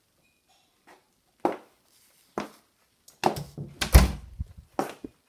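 Footsteps of hard-soled black shoes on a wooden parquet floor, single knocks about a second apart, then a quick run of knocks with a heavy, deep thump about four seconds in.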